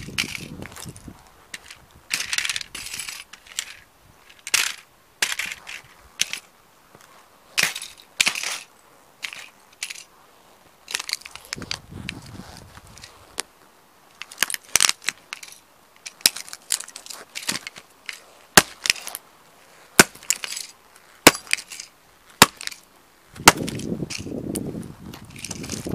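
Heavy Lowa hiking boots stomping and grinding model toy cars on concrete: bursts of crunching and cracking as the metal bodies and plastic parts break, with single sharp snaps in the second half.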